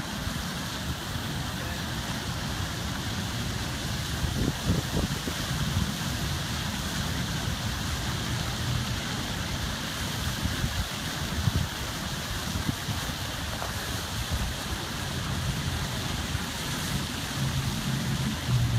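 Steady outdoor background noise with wind rumbling on the microphone.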